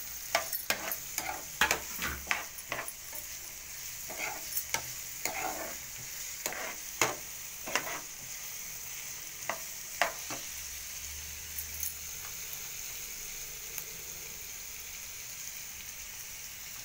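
Diced onion, capsicum and grated carrot sizzling in oil in a frying pan, stirred with a steel spoon that scrapes and clicks against the pan. The stirring strokes come thick and fast for about the first ten seconds, then give way to a steady sizzle with only the odd scrape.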